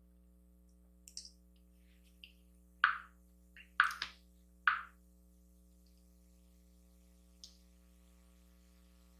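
Quiet room with a faint, steady electrical hum and a few brief soft sounds, three of them close together a few seconds in.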